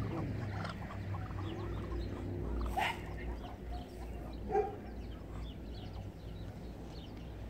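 Muscovy ducks giving a few short, soft calls while foraging, the loudest about four and a half seconds in, over a low rumble.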